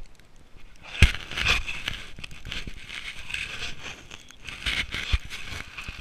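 Close crunching and rustling of someone walking through deep snow with a handheld camera, with a sharp knock against the microphone about a second in and another near the end.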